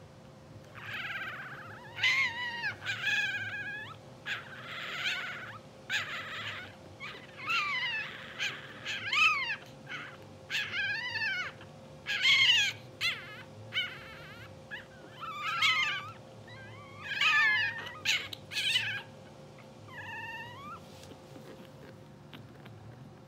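Newborn English bulldog puppies squeaking and crying, a string of short high cries that rise and fall in pitch, dying away near the end. A faint steady hum runs underneath.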